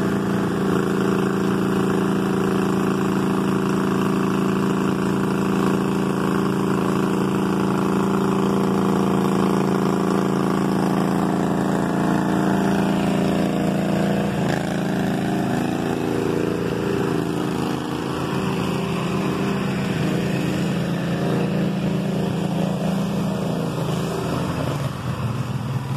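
Small engines of riding lawn tractors running steadily while driving through mud, the tone shifting a little about halfway through.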